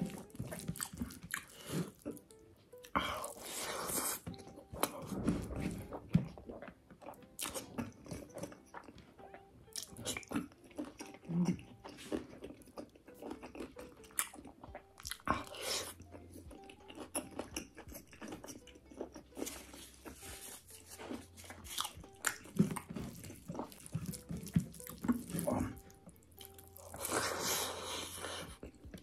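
Close-miked eating by hand: rice and curry squished and mixed with the fingers, and chewing with many short, irregular wet smacks and crunches.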